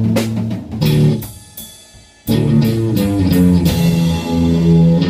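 Rock band playing electric guitar and bass over a drum kit. The music drops away about a second in and the guitar and bass come back in just after two seconds.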